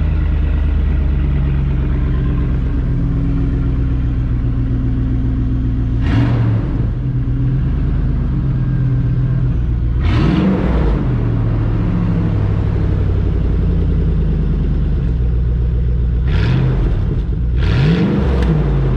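2006 Lincoln Navigator's 5.4 L V8, still cold from its start, running with the muffler removed: a steady open-exhaust idle, blipped up in revs four times, once about a third of the way in, once around the middle and twice close together near the end.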